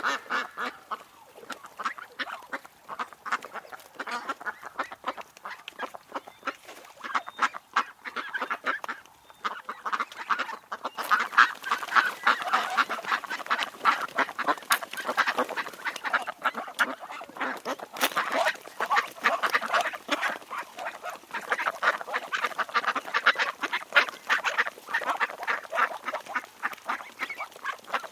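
A group of ducks and drakes quacking: a dense, continuous chorus of rapid, overlapping quacks.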